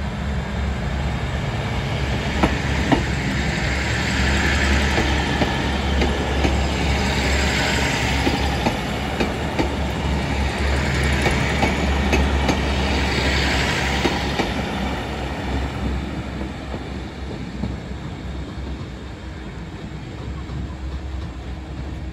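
Diesel train passing over a level crossing: a steady engine drone with wheels clattering over the rail joints. It is loudest in the middle and fades away toward the end.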